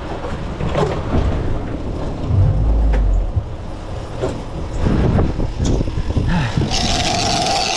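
Boat engine running under heavy wind buffeting, with scattered knocks and clatter on deck. Near the end a loud hissing rush with a steady whine comes in.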